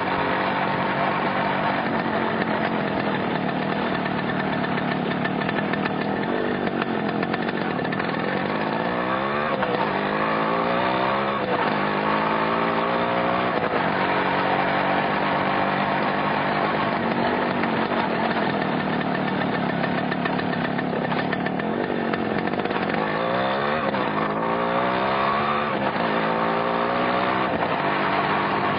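Yamaha motorcycle engine running steadily, its revs climbing in a few quick rising sweeps about nine seconds in and again around twenty-three seconds.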